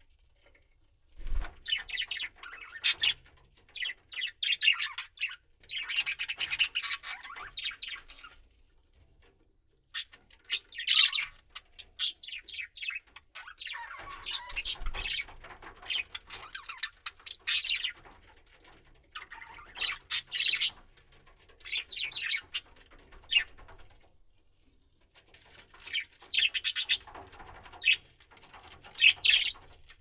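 Budgerigar chatter: rapid, scratchy warbling and chirps coming in bursts a few seconds long, with short pauses between.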